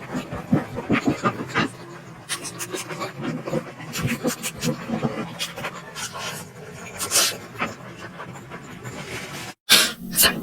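A person eating momos close to the microphone: chewing and lip-smacking with many short irregular mouth clicks and breathy sounds. The sound cuts out for a moment about nine and a half seconds in.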